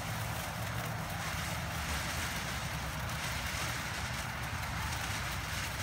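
Devil's Poison ground firework fountain burning, a steady rushing hiss of sparks spraying from the tube.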